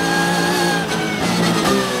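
Porsche 911 GT3 Cup car's flat-six engine heard from inside the cockpit, its note falling in pitch as the car brakes for a corner, with a brief break about a second in.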